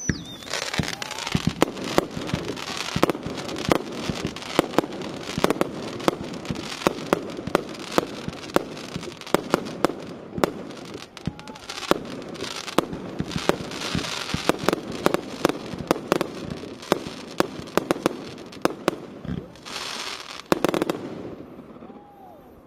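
Fireworks display: many sharp bangs of shells bursting, often several a second and at uneven spacing, over a continuous hiss and crackle of burning effects. The bangs thin out near the end.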